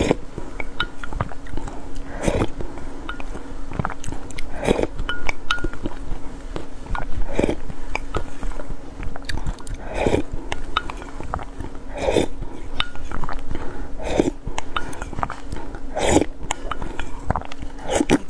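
Close-up eating sounds of a person slurping thick lotus root starch paste off a wooden spoon and from a glass mug, one slurp about every two seconds with small wet clicks in between. A faint steady hum runs underneath.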